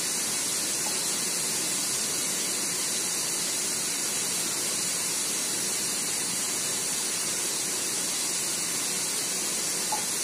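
Steady high-pitched hiss, even and unbroken, with no other clear sound.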